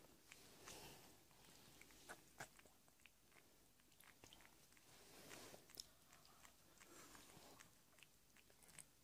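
Faint wet mouth sounds with small scattered clicks from a tuxedo mother cat licking her newborn kitten clean just after its birth.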